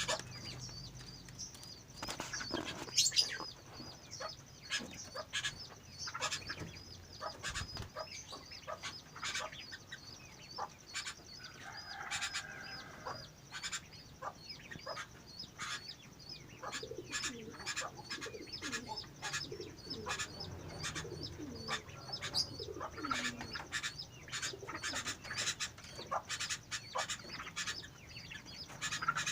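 A bird thrashing in fits, its wings flapping and knocking in irregular flutters, with a few short falling calls about two-thirds of the way through; the owner says the bird is having convulsions.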